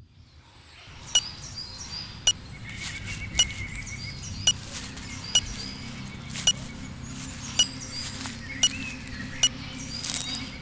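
Sharp, clock-like ticks about once a second over birds chirping in woodland, with a low steady hum underneath; a louder burst of sound comes in near the end.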